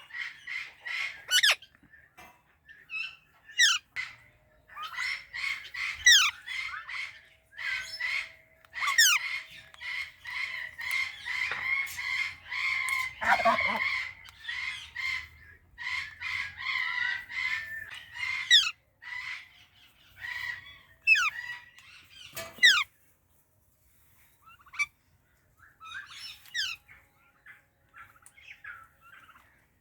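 Psittacula parakeets (Indian ringneck and Alexandrine) calling: runs of rapid chattering squawks broken by sharp, sweeping screeches, with a brief lull a little past the middle.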